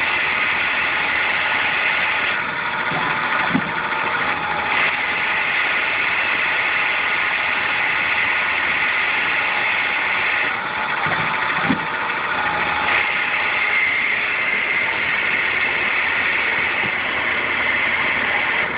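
Tormach Duality Lathe spindle running at 1000 RPM, turning a part at a 5 inch/min feed with a 0.01 inch cut. It gives a steady high whine over a hiss. The tone shifts several times and two brief clicks sound, about 3.5 and 11.5 seconds in.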